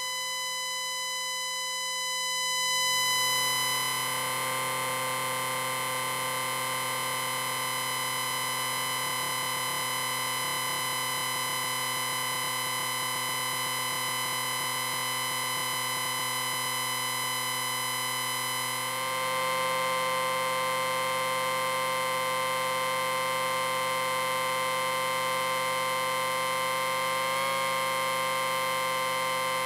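Amplifier beep: a steady, unbroken electronic tone with many overtones. It swells a couple of seconds in and its mix of tones shifts about two-thirds of the way through.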